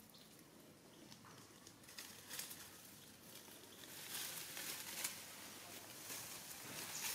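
Faint rustling and crackling with scattered light clicks, louder from about two seconds in: a young monkey scrambling on a tree trunk and through grass and dry leaves.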